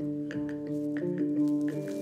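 Instrumental background music: sustained chords held steady, with light clicks over them.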